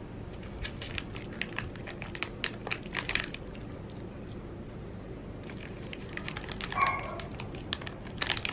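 Foil treat bag crinkling in bursts of crackles as biscuits are taken out for a chihuahua, with one short high whine from the chihuahua about seven seconds in.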